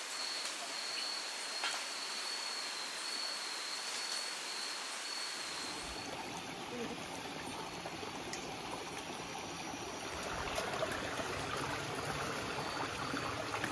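Running water, a steady rushing trickle. A high, steady insect trill runs over it and stops about six seconds in, where the water sound grows fuller in the low end.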